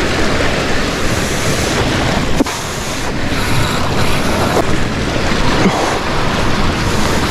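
Sea surf washing steadily, with wind buffeting the microphone.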